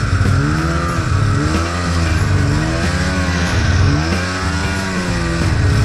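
A two-stroke snowmobile engine revving up and falling back again and again, about once a second, over a steady low drone. The sled is working to free a snowmobile stuck in deep snow on a tow strap.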